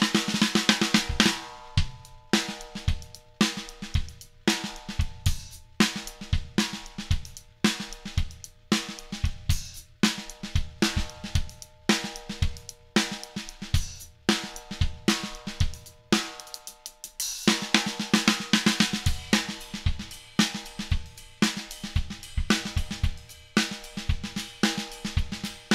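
Drum kit played in a steady groove built around a 7x14 stave snare drum of maple and Douglas fir, its hits ringing on with a sustained shell tone, under kick drum and hi-hat. Crash cymbals wash over the beat at the start and again about two-thirds of the way through.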